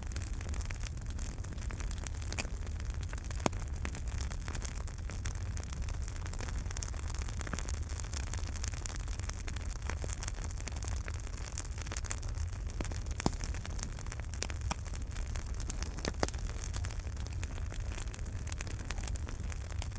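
Wood fire burning in a fireplace: a steady low rumble of flames under frequent irregular crackles and pops, a few of them sharper and louder than the rest.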